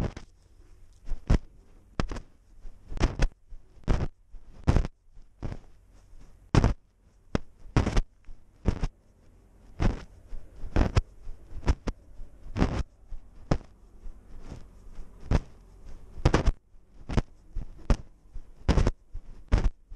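Irregular sharp knocks and thumps, one or two a second, from a GoPro mounted on a walking cat, jostling in its mount with each step.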